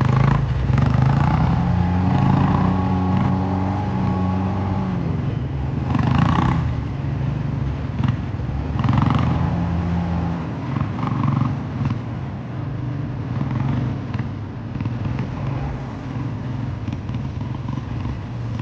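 Dirt bike engine running at low trail speed, its revs rising and falling.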